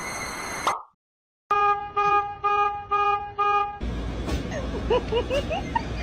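A horn honking five times in a quick, even rhythm, each blast short and steady in pitch. It is followed by a noisy stretch with short rising squeaks over a low rumble.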